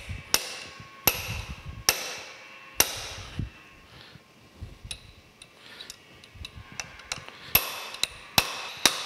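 A hammer tapping a steel tapered pin down into its hole in a gear hub on a planer's feed-works shaft: sharp metal-on-metal strikes, roughly a second apart, lighter taps in the middle and a few harder blows near the end as the pin seats.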